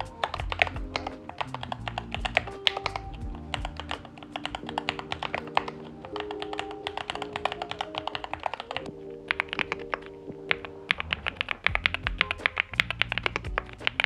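Continuous typing on a Keychron K8 Pro, a stream of key clacks from its factory-lubed Gateron Jupiter Red linear switches under OSA double-shot PBT keycaps. About eight seconds in it gives way to typing on a NuPhy Gem80 with factory-lubed NuPhy Mint linear switches and mSA PBT keycaps. Background music plays underneath.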